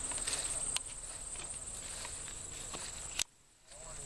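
Crickets trilling steadily at a high pitch over footsteps through mown grass. About three seconds in, everything cuts off abruptly with a click into near silence.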